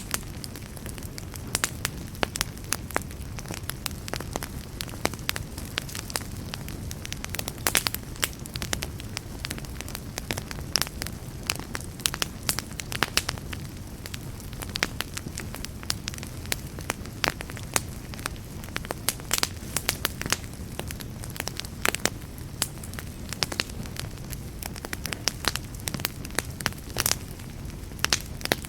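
Wood fire crackling: frequent sharp, irregular pops and snaps over a steady low rumble of burning.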